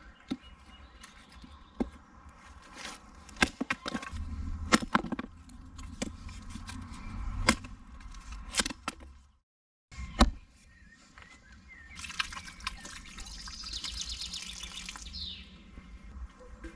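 A hatchet splitting kindling on a log chopping block: a string of sharp wooden knocks and cracks, about ten strikes. Later, water runs and splashes from the tap of a plastic water canister for about three seconds.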